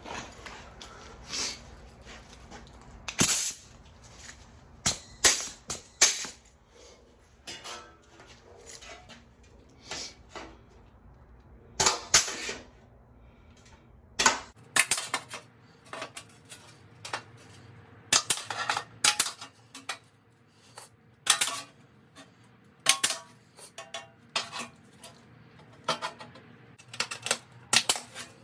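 Sharp metallic clanks and clicks at irregular intervals, some louder than others: hand tools and sheet-metal floor pan panels being handled and struck while the pan is fitted.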